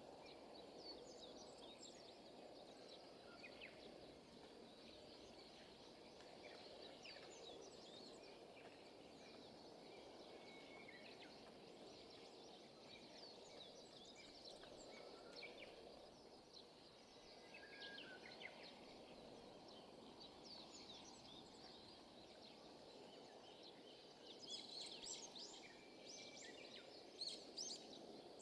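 Faint, steady background noise with many small birds chirping, the chirping busier and louder near the end.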